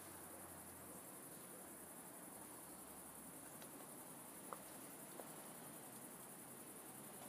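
Near silence: a faint, steady, high-pitched chirring of crickets, with two faint ticks a little over halfway through.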